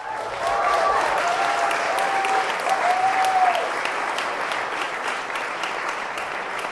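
Audience clapping and cheering, with a few drawn-out calls or whoops in the first few seconds. The applause eases off slightly in the second half.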